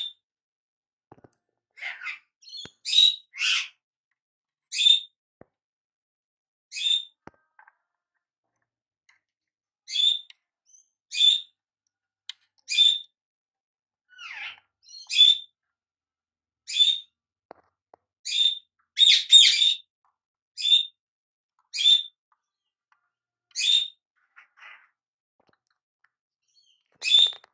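A bird calling over and over: about twenty short, sharp chirps, roughly one every second or two. A few of them slide downward in pitch.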